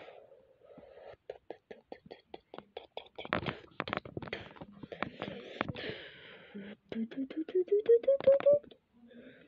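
Vocal sound effects made with the mouth: clicks and pops, then a quick run of about ten short notes climbing in pitch near the end.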